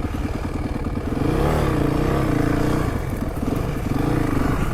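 Honda CRF450 dirt bike's single-cylinder four-stroke engine running under way, the revs rising and falling twice with the throttle.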